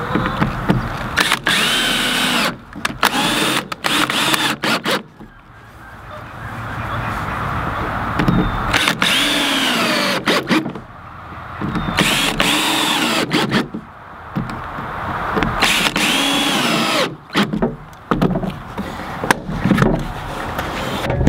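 Cordless drill/driver working into wooden boards in about five short runs of a couple of seconds each, its motor whine rising and falling with each run. Clicks and knocks sound between the runs.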